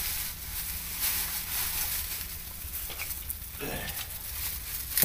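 Plastic bag and newspaper rustling and crinkling as banana-leaf food packets are handled and bagged, over a steady low rumble. A short voice sound comes about three and a half seconds in.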